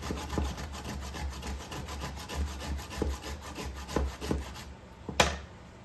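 Block of Parmesan cheese being grated by hand: quick, even rasping strokes that stop a little before the end, followed by one sharp knock, the loudest sound.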